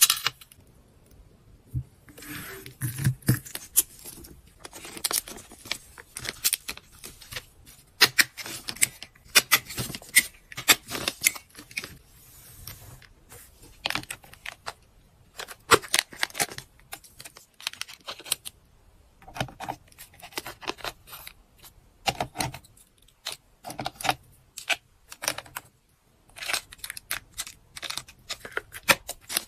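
Small plastic items being handled and set down on a plastic tray, among them gel pens with keychain charms and plastic-wrapped packets. Irregular sharp clicks and taps with light jangling of the charms, and short spells of plastic packaging rustling.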